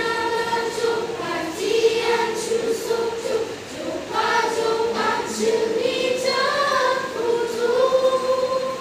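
A choir of girls and young women singing a song together from song sheets, holding long notes in a steady melody.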